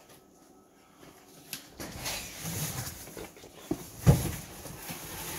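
Cardboard boxes being handled and shuffled, with rustling and a few light clicks, and one sharp knock about four seconds in.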